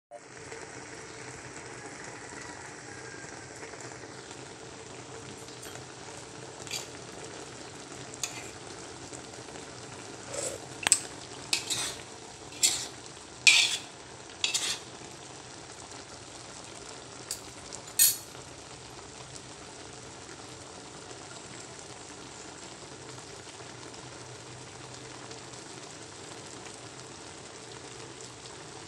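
Milkfish paksiw cooking in a metal wok, sizzling steadily. Between about 6 and 18 seconds in, a metal spoon stirs it, with about a dozen sharp clinks and scrapes against the wok.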